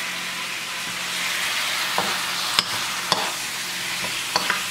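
Chicken pieces sizzling steadily in a pan, with a metal spoon clicking and scraping against the pan as it stirs, a handful of sharp clicks from about two seconds in.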